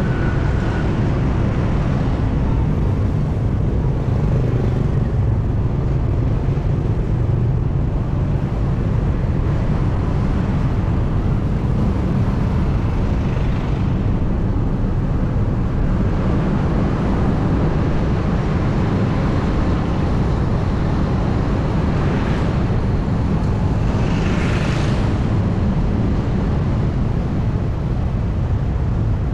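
Steady low rumble of wind and road noise from a camera moving through city traffic. A vehicle passes close by with a louder hiss about 22 seconds in and again around 24 to 25 seconds.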